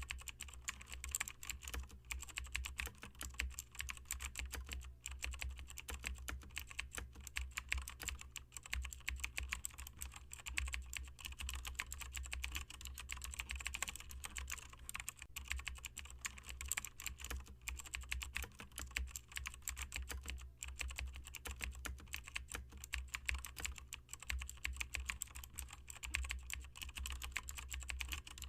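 Dense, rapid clicking that goes on without a break, over a low steady hum.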